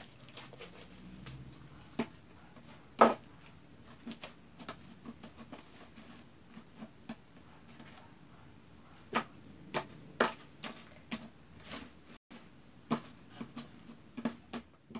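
Pink homemade glue slime being kneaded and pressed by hand on a tabletop: scattered sticky clicks and small pops, the loudest about three seconds in, coming more often in the second half.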